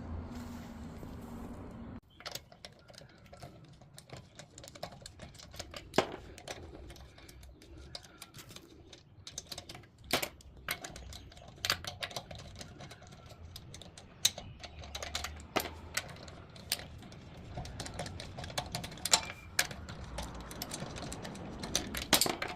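Irregular light clicks and a few sharper metallic knocks of hand tools working on a car wheel: a wheel spanner on the wheel bolts and a car jack being worked. A low hum in the first two seconds cuts off suddenly.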